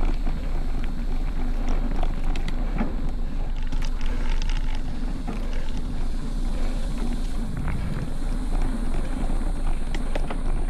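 Specialized Stumpjumper Evo mountain bike riding over a dirt trail, heard from a camera clamped to its handlebar: a steady rumble of tyres and wind on the microphone, with frequent small clicks and rattles as the bike goes over rough ground.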